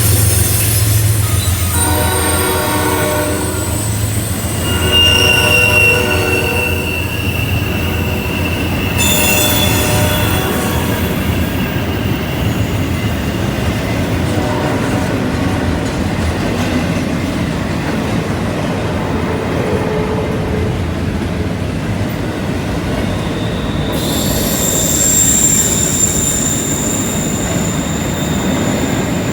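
Freight train rounding a curve, its wheel flanges squealing against the rail in long high steady tones that come and go. The locomotive horn sounds twice in the first few seconds, and the diesel locomotives' low hum fades after about ten seconds as the cars roll past.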